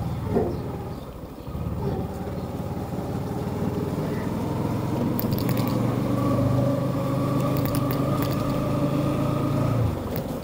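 Bajaj Pulsar NS160's single-cylinder engine pulling under throttle, its note holding and climbing slightly as the bike accelerates, then dropping away suddenly near the end as the throttle closes. A short, sharp falling squeal sounds about half a second in.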